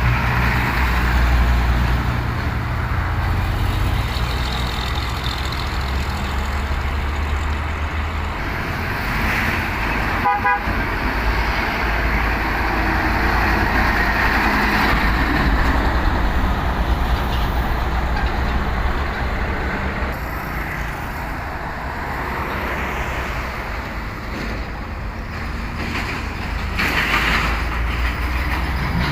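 Fuso Tronton heavy truck's diesel engine running under load, with road and traffic noise, and a short horn toot about ten seconds in.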